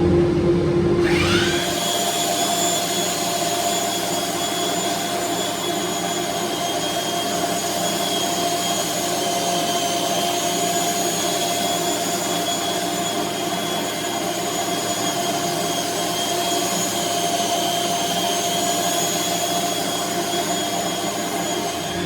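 Electric power tool motor spinning up with a rising whine about a second in, then running steadily at speed with a high-pitched whine.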